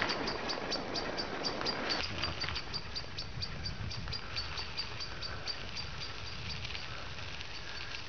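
Bicycle rolling along a gravel path: a low rumble from the tyres and wind on a fur-covered microphone, with a regular high ticking about four to five times a second.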